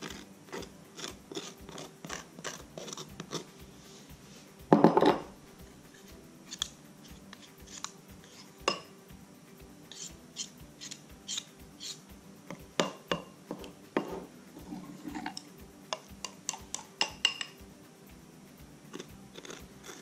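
Metal fork clicking and scraping against a glass bowl as thick icing is stirred, in quick irregular taps, with one much louder clunk about five seconds in.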